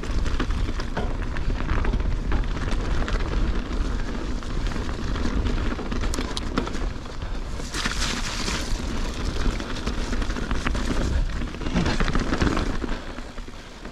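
Wind and ride rumble buffeting the microphone of a chest-mounted GoPro on a mountain bike riding over rough, rocky ground, with scattered clicks and rattles from the bike. There are brief bursts of hiss about eight and twelve seconds in.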